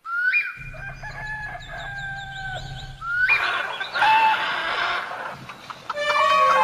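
A rooster crowing twice: one long crow, then a second about three seconds in. Instrumental music begins near the end.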